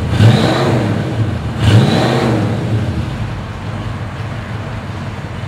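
1968 Ford Mustang's freshly rebuilt 289 V8 running through its dual exhaust: blipped twice in the first two seconds, each rev rising and falling, then settling into a steady idle.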